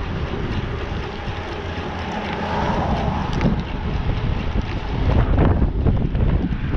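Strong wind buffeting the microphone of a rider on a moving bicycle, a dense gusting rumble that grows louder about five seconds in.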